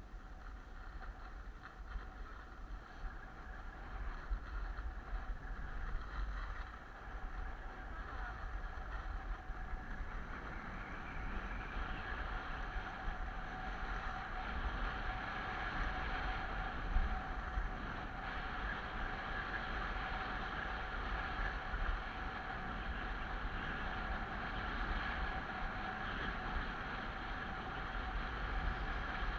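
Wind buffeting the microphone and skis hissing over groomed snow on a downhill run, growing louder about ten seconds in.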